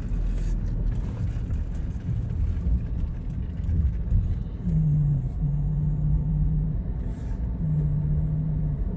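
Car driving, heard from inside the cabin: a steady low rumble of engine and road, with a low hum that comes and goes in the second half.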